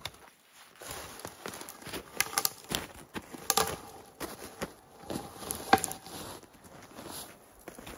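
Boots crunching in snow and dead wood cracking and snapping as logs and branches are grabbed and pushed by hand, with an uneven run of sharp cracks, the loudest a little before six seconds in.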